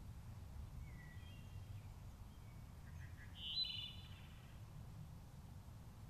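A wood thrush sings one short phrase about halfway through, the loudest sound, with fainter bird notes before it. A steady low rumble runs underneath.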